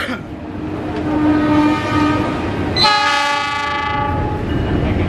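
Diesel locomotive air horn sounding twice as the train approaches slowly: a softer blast about a second in, then a louder, brighter multi-tone chord about three seconds in that lasts a second and a half. The locomotive's engine and the rolling train rumble underneath.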